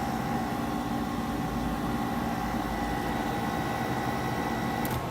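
Haier window air conditioner running: a steady hum with a thin whine on top. Near the end there is a click, after which the whine and the deepest part of the hum drop away.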